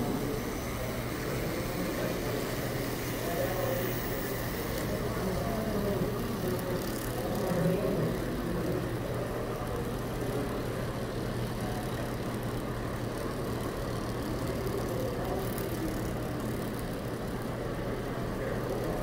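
Indistinct crowd chatter in a busy exhibition hall, with a steady low hum underneath.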